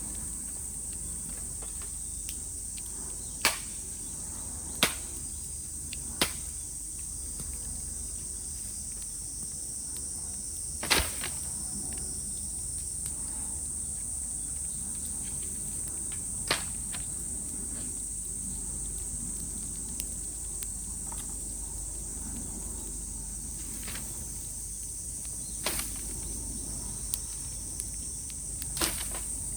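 Cicadas calling in a steady high-pitched drone, while bamboo burning in a bonfire gives about seven sharp pops, the loudest about eleven seconds in.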